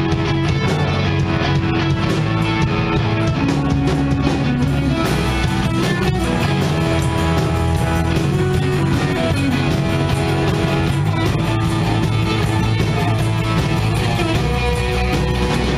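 Live rock band playing electric guitars, bass guitar and drum kit, with a steady cymbal beat from about five seconds in.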